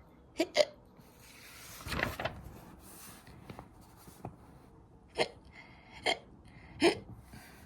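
A woman imitating hiccups: short sharp "hic" sounds, a quick pair near the start and three spaced about a second apart near the end. A short rustle comes about two seconds in.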